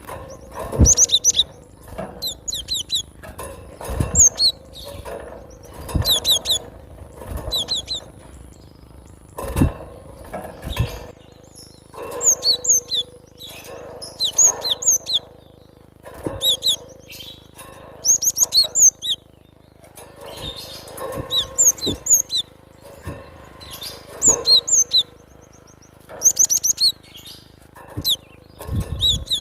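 Cinereous tit (glatik batu) singing: short bursts of quick, high chirping notes repeated every second or two, with low thumps among some of the bursts.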